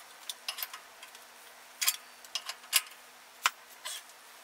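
Irregular sharp metallic clicks and ticks, about eight spread through, from a large dial torque wrench and its socket being worked on a nut, tightening it to just over 500 foot-pounds.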